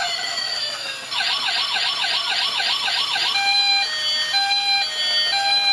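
Toy police car's electronic siren sound effect: a falling tone, then a fast warbling siren for about two seconds, then a two-tone hi-lo siren stepping back and forth between two pitches.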